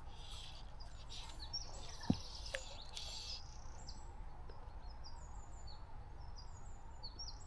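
Small birds chirping and singing in quick, high repeated notes over a steady low outdoor rumble, with one sharp knock about two seconds in.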